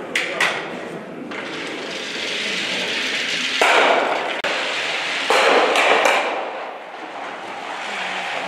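Ice stocks shot down an asphalt lane in a hall: a stock sliding along the surface, then two loud, hard knocks about three and a half and five seconds in as stocks strike one another, each echoing off for most of a second.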